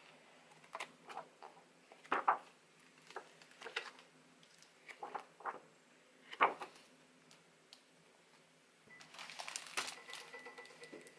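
Pages of a large art book being turned by hand: a string of short paper swishes and flaps, then a longer rustle of about two seconds near the end as the last pages are leafed through.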